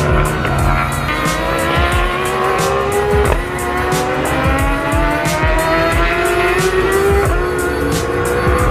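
Several racing superbikes accelerating hard out of a corner one after another, their engines rising steadily in pitch, with frequent sharp crackles.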